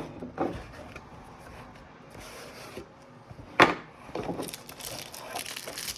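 Pokémon card packs and cards being handled on a table: two sharp knocks, one at the start and one about three and a half seconds in, with light rubbing between, then foil booster-pack wrapper crinkling over the last two seconds.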